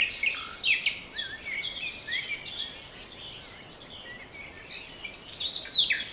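Small birds chirping and tweeting in quick overlapping calls. The calls are busy at first, thin out in the middle, and pick up again near the end.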